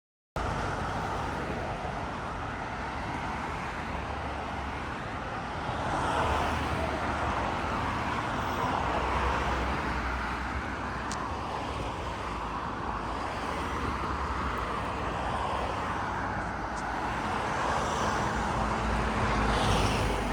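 Road traffic noise: a steady rumble of cars that swells and eases as vehicles pass.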